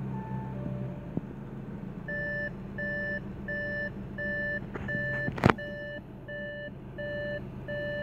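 Audi A6 instrument-cluster warning chime beeping over and over, about three beeps every two seconds from about two seconds in. It is the warning that comes with the 'Switch off ignition before leaving car' message, given while the engine runs with the driver about to leave the car. Under it the 2.0 TDI four-cylinder diesel idles steadily, and a single sharp knock comes about halfway through.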